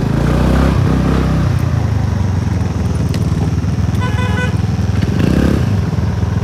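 Scooter engine running at low speed as the scooter slows to a stop, with a steady low putter of firing pulses. A brief horn beep sounds about four seconds in.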